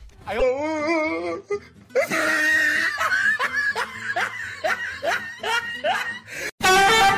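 Laughter: a wavering laugh near the start, then a run of short laughs about two a second, with music under it. A sharp knock sounds near the end.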